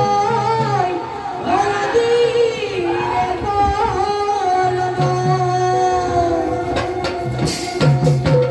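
Live bhaona music: a sung melody line over hand-drum strokes, with bright cymbal clashes coming in near the end.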